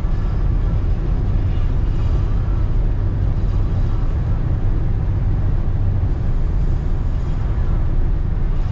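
Steady low rumble of road and engine noise heard inside a car's cabin while it drives at highway speed.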